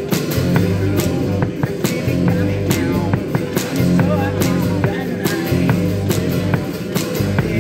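A live band playing, with a drum kit keeping a steady beat of sharp drum and cymbal hits several times a second over a moving bass line.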